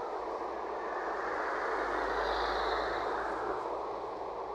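Road traffic passing close by as a LiAZ-5280 trolleybus pulls in to the stop: tyre and road noise swells to a peak about halfway through, with a faint high whine at the peak, then eases off.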